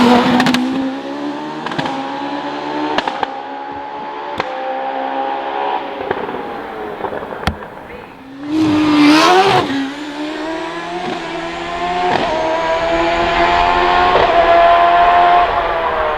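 Hillclimb racing car engine at high revs, pulling hard with its pitch climbing slowly through the gears, with a few sharp pops along the way. About nine seconds in comes a loud, quick swoop in pitch as a car passes close. Then an engine pulls again with its pitch rising, and falls away near the end.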